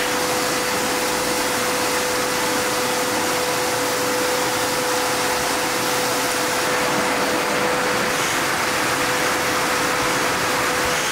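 Shop vacuum running steadily with an even whine, its hose sucking over the carpet of a truck's footwell.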